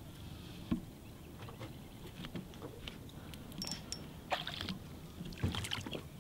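Faint water sounds around a small boat as a hooked flathead is played near the surface, with a sharp knock under a second in and two short splashes about four and a half and five and a half seconds in.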